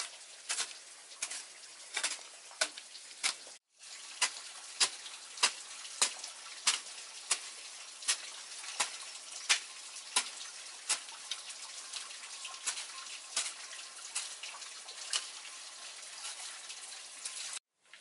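A hoe chopping into wet, muddy soil in an even rhythm, a sharp strike roughly every two-thirds of a second, over a steady hiss.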